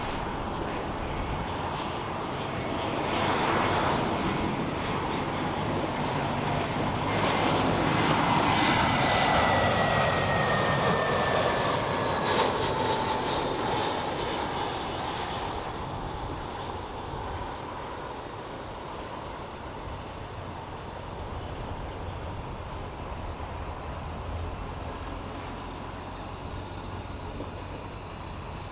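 Jet airliner engines, likely the Boeing 777-300ER's, passing by: a steady engine noise that swells twice with a whine falling slowly in pitch, then gradually fades.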